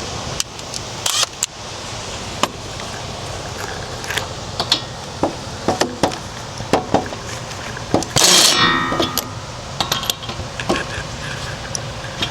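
Metal hand tools clinking and knocking on a wheel-hub bolt, with a louder rasping scrape about eight seconds in.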